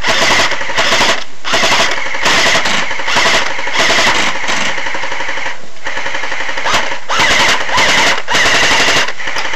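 Airsoft gun firing full-auto in several long bursts with short pauses between them.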